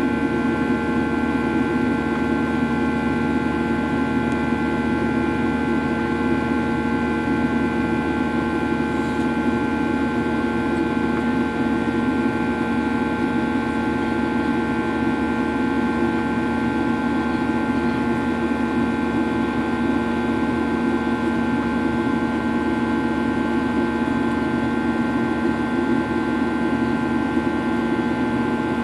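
Cabin noise of a Boeing 737-800 in flight: the steady drone of its CFM56 turbofan engines and the rush of air, with several steady whining tones over it.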